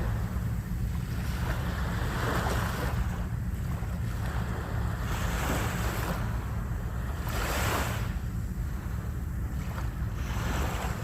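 Ocean waves breaking and washing up the shore, the wash swelling about every two to three seconds over a steady low rumble.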